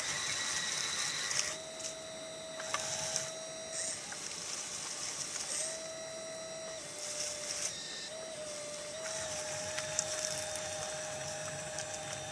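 The electric motors and hydraulic pump of a 1/12-scale RC Liebherr 636 track loader whine as it drives and works its bucket. The whine starts and stops in bursts of a second or two over a steady hum whose pitch shifts slightly.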